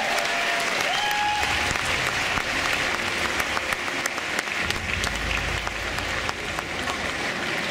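Audience applauding, a dense steady patter of many hands clapping, with a cheer about a second in.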